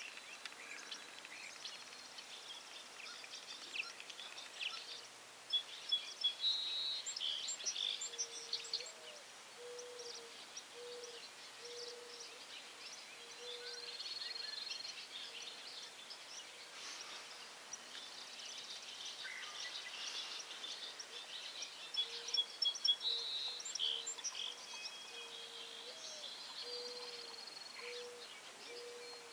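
Outdoor ambience of wild birds chirping and calling. A low note repeats about once a second in two runs, one partway in and one near the end.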